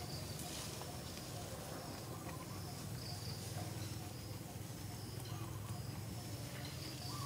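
Outdoor ambience: short, faint high-pitched chirps repeating irregularly, over a steady low hum.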